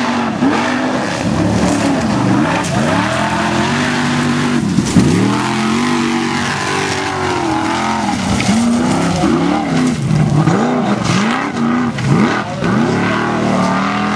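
Formula offroad competition car's engine revving hard, its pitch swinging up and down again and again, every second or so, as the throttle is worked.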